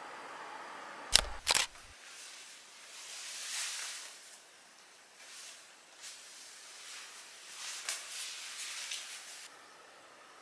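Handling sounds: two sharp knocks about a second in, then soft rustling and a few light clicks as a small white projector is set on a rug and its head is tilted on its stand.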